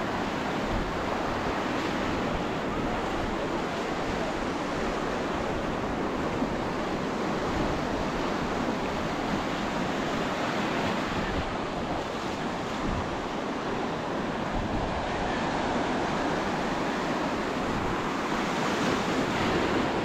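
Steady wash of ocean surf, with wind buffeting the microphone.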